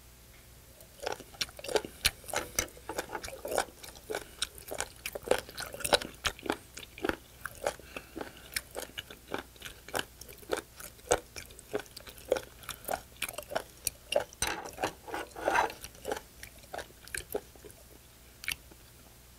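A person chewing raw spoon worm close to the microphone: a dense, irregular run of sharp clicking bites and mouth smacks. It starts about a second in and stops shortly before the end.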